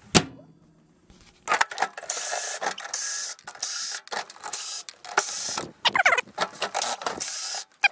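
After a short pause, a cordless drill-driver runs in a string of short bursts, backing screws out of a microwave oven's sheet-metal back panel.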